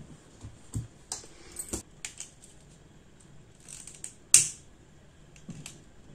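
Pocket flint lighter struck to melt and fuse the ends of a macrame cord: a sharp strike about four seconds in is the loudest sound, after a few softer clicks and rustles of cord being handled.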